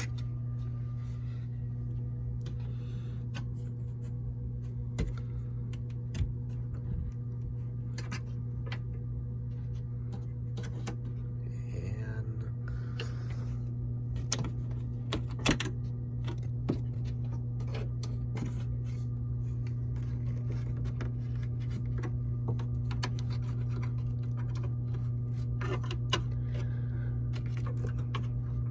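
Hotel room HVAC unit running with a steady low hum behind its opened return-air vent, with scattered sharp clicks and taps.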